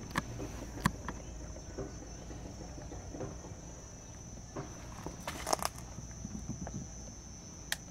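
Short rustles and knocks of a large fish being handled in a mesh landing net, the sharpest cluster about five and a half seconds in, over a steady high insect trill.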